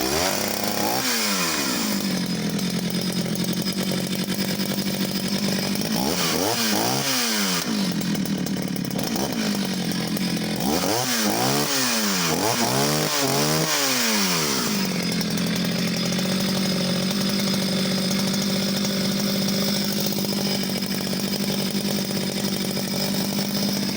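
Vintage Oleo-Mac 264 two-stroke chainsaw started warm with the choke off. It catches at high revs and drops to idle, is revved up and down once and then several times in quick succession, and then idles steadily.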